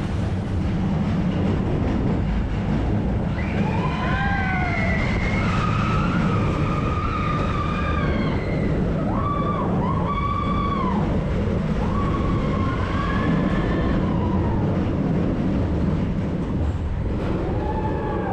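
Roller coaster train rumbling along its track, with riders screaming in long, rising-and-falling cries through much of the stretch, several of them overlapping.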